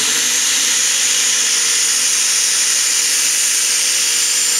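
Light super stock pulling tractor's turbocharged engine running flat out under load as it pulls down the track. It is a loud, steady scream with a high, steady whistle over it.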